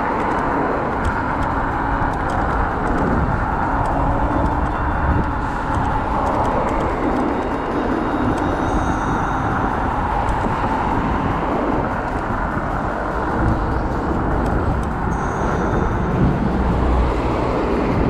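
Steady riding noise from a Kaabo Wolf Warrior electric scooter in motion: a heavy low rumble of wind on the microphone and tyres on the road, with no clear pitched tones.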